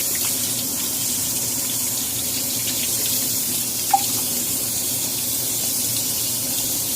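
Sink faucet running steadily as a reusable ekobrew K-cup is rinsed under it, with one short clink about four seconds in.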